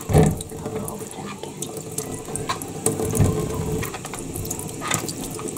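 Kitchen faucet running into a stainless steel sink while apples are rinsed under the stream, a steady splashing with a few light knocks.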